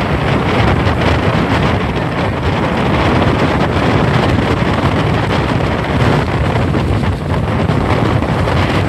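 Strong storm wind blowing hard into the microphone, a steady loud roar, over the rushing of heavy hurricane-driven surf.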